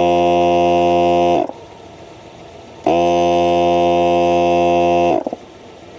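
NOCO Boost+Air AX65's built-in air compressor inflating a car tyre: a loud, steady, buzzing hum that winds down and stops about a second and a half in, starts again abruptly about a second later, then winds down and stops again a few seconds in as the tyre reaches its set pressure.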